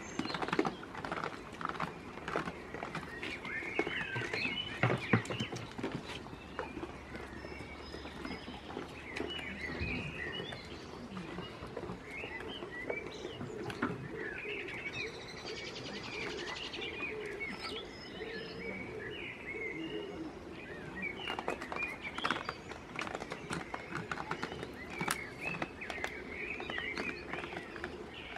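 Small birds chirping and singing throughout, with a few sharp knocks and clicks scattered among them.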